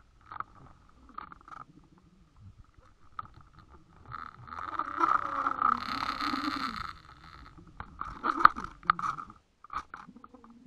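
Muffled underwater noise picked up by a line-mounted camera while a hooked carp is played: a low rumble of water against the housing with scattered clicks and scrapes. It grows louder for a couple of seconds about halfway through.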